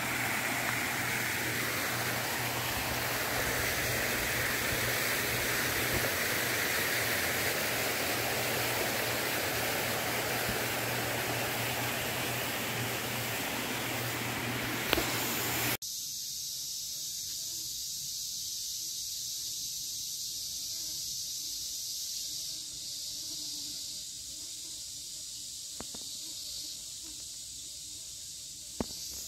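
A steady, even rushing hiss with a low hum underneath for the first half, which cuts off suddenly about halfway through. After it, a quieter, steady high-pitched insect chorus of summer cicadas or crickets carries on, with a couple of faint ticks near the end.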